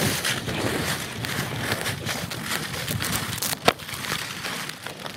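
Wind buffeting the microphone and skis scraping over snow on a fast downhill run, sped up to double speed. There is one sharp click about three and a half seconds in.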